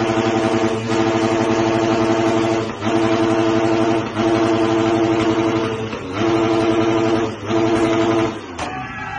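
Dirt bike engine revved hard and held at high revs, with the throttle dropping off briefly every second or two. Near the end a balloon over the exhaust bursts with a sharp pop and the revs fall away.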